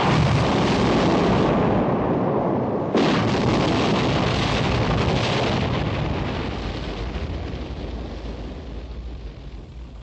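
A crashed helicopter exploding: a blast already under way, a second sudden blast about three seconds in, then a rumble that fades away over the last few seconds.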